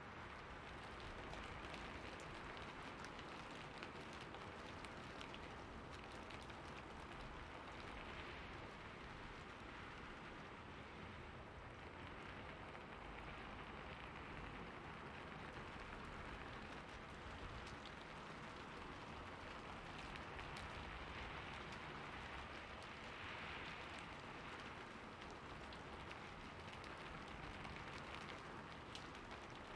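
Steady rainfall, an even hiss of rain with faint scattered drop ticks.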